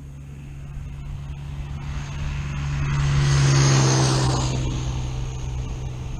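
Diesel motorcycle with a VW Lupo 3L 1.2-litre turbo diesel engine driving past. The engine sound swells to its loudest about halfway through, then fades as the bike moves away.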